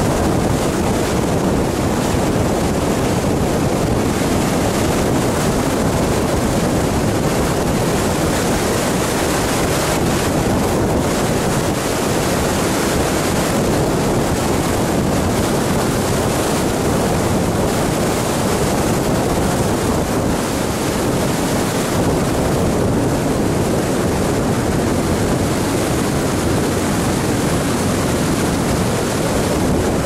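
Steady rush of wind and tyre noise from a car driving along a paved road, with wind blowing on the microphone.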